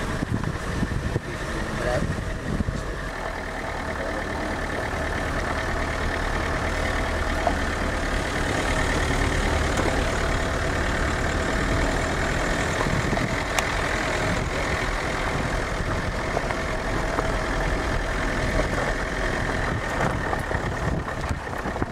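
Car engine running and tyres rolling over a rough dirt track, heard from inside the car as a steady low rumble.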